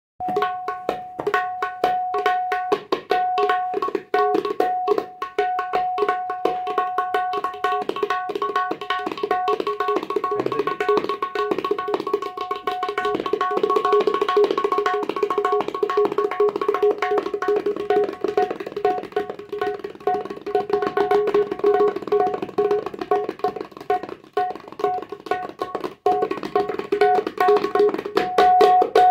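Tabla played solo in rupak taal, the seven-beat rhythm cycle: a fast, dense run of hand strokes, with the tuned right-hand drum ringing at one steady pitch throughout.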